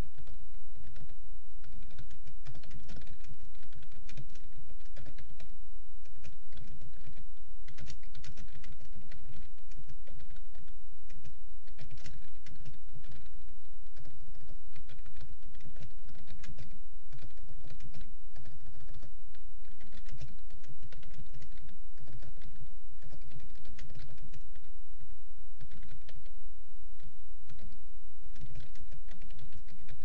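Computer keyboard keys clicking in rapid, steady typing at about 55 words a minute, over a steady low hum.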